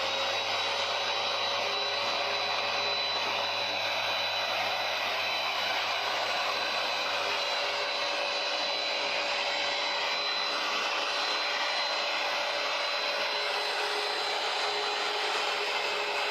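Hoover PowerDash Pet carpet cleaner (FH50700) motor running steadily, a constant high-pitched whine over a rushing hum.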